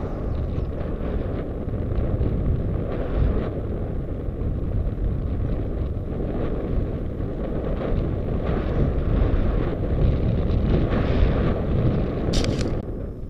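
Wind rushing over the microphone of a camera on a mountain bike moving along a paved road, a steady low rumble. A short sharp click sounds near the end.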